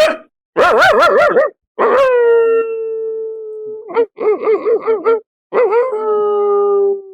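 A man's voice mimicking a dog howling: short wavering whines alternating with two long held howls that sag slightly in pitch, the second trailing away at the end.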